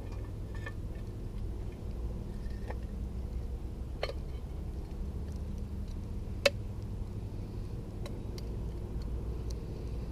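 Campfire crackling with scattered sharp pops, one much louder than the rest about six and a half seconds in, over a steady low rumble.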